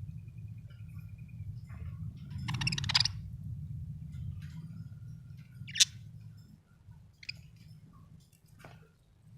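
Budgerigar giving a few scattered calls: a short buzzy chatter, then a sharp, brief chirp and a couple of fainter chirps, with a steady low hum underneath.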